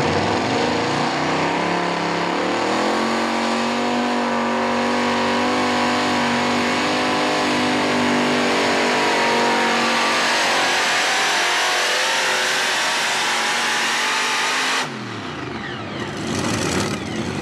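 A modified pulling tractor's twin supercharged V8 engines at full throttle under load. The pitch climbs over the first few seconds, then holds high and steady. Near the end the throttle is chopped and the engine note falls away quickly.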